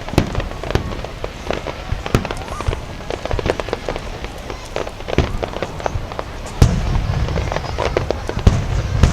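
Aerial fireworks going off in a rapid, irregular string of sharp bangs and crackles. About six and a half seconds in there is a loud bang, followed by a heavier low rumble.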